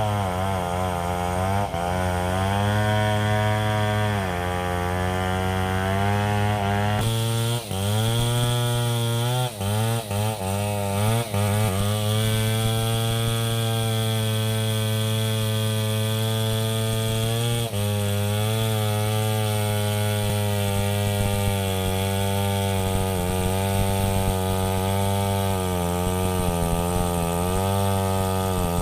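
Two-stroke chainsaw running at high revs while cutting through a large log, its engine pitch sagging and recovering as the chain bites under load, most often in the first dozen seconds, then holding mostly steady through the cut.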